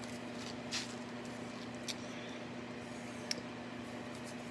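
Quiet handling of Pokémon card packs: three faint, brief rustles or clicks over a steady low hum.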